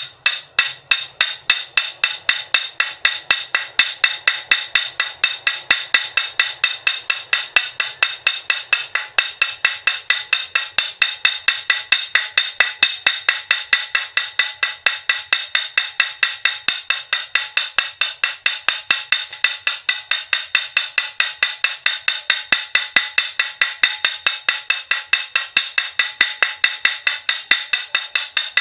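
Small steel chisel tapped rapidly and steadily against a glass bottle, about four sharp ringing clinks a second, chipping a rough spot into the glass to start a drill hole.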